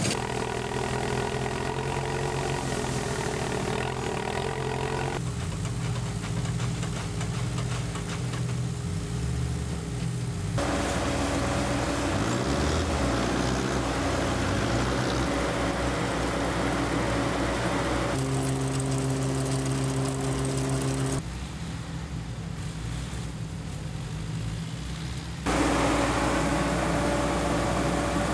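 Mechanical prune harvesting machinery (tree shaker and conveyor harvester) running steadily, its engine hum and conveyor rattle shifting abruptly several times between different machines.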